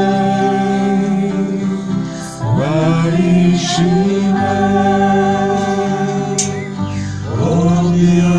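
Slow sung religious hymn: a singing voice holding long notes over sustained accompaniment, sliding up into a new note twice.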